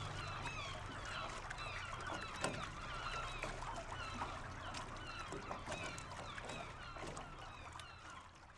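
A flock of birds calling over one another, with many short overlapping calls and a few sharp clicks, fading out near the end.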